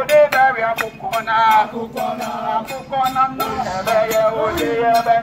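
Dance music with a man singing over a steady beat of about three strikes a second.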